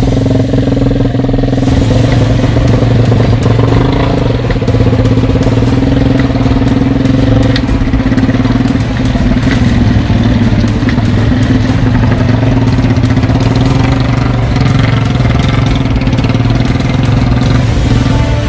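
Three-wheeled motorcycle's Yamaha MX single-cylinder four-stroke engine running steadily at an even speed.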